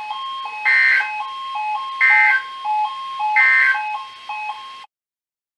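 Weather radio receiver's alert alarm, switching between two pitches about every quarter second. Three short bursts of SAME digital data sound over it about a second and a half apart, the end-of-message code of the NOAA Weather Radio required weekly test. Everything cuts off abruptly near the end.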